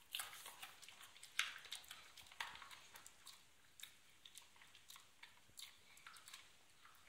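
Bull terrier chewing raw carrot: soft, uneven crunches, about one a second.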